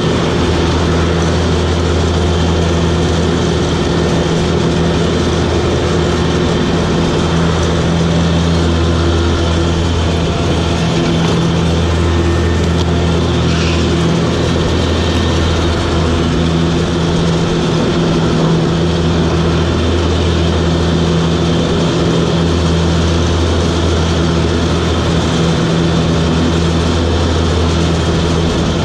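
Toro Groundsmaster 7210 zero-turn mower's diesel engine running steadily under the operator, with a steady low hum that wavers slightly now and then, over a broad whirring noise.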